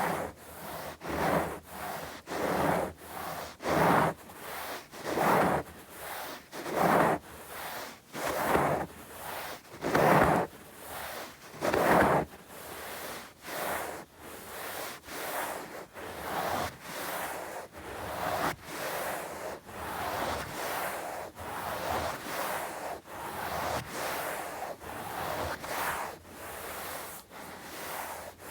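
Bare palms rubbing together in steady back-and-forth swishing strokes. For the first twelve seconds or so a stronger stroke comes about every second and a half, with softer ones in between. After that the strokes turn quicker, evener and softer.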